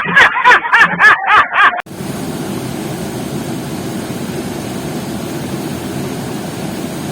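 A voice speaking briefly, cut off about two seconds in, then a steady rush of flowing water, heaviest in the low end.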